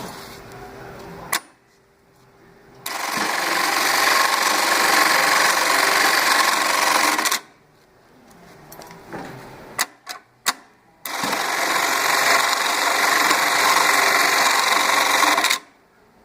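Juki LK-1900A computerized bar-tacking industrial sewing machine running two sewing cycles of its larger box-and-cross pattern, each about four and a half seconds long. Between the cycles comes a pause with a few sharp clicks.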